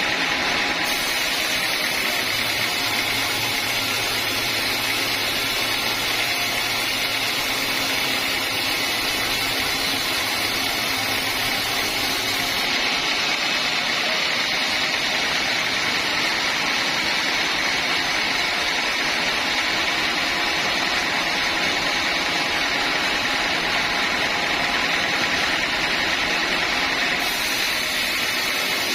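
Sawmill saw machinery running steadily, a continuous mechanical noise. A low hum underneath drops out a little under halfway through.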